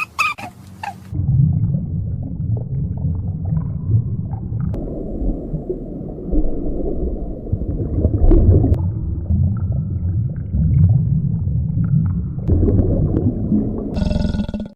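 A low, rumbling animal vocalization that goes on almost without a break, strongest in the deep range and swelling louder several times.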